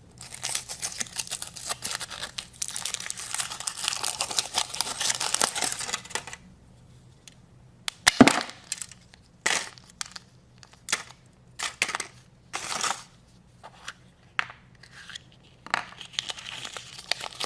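Foil wrapper crinkling and tearing as a chocolate surprise egg is unwrapped, then a sharp crack about eight seconds in, followed by scattered short crinkles and clicks.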